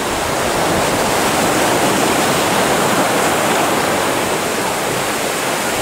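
Sea surf breaking and washing in over rocks: a steady rushing of water.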